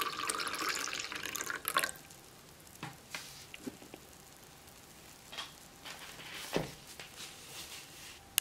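Red wine poured from a bottle into a cut-glass goblet, the splashing stream stopping about two seconds in. Afterwards only faint scattered pops and clicks as the froth on the wine settles.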